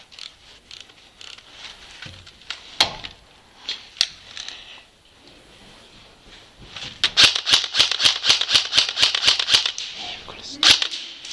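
Airsoft rifle fire: a few scattered shots and cracks, then a rapid run of shots at about five or six a second for nearly three seconds from about seven seconds in, and one louder crack near the end.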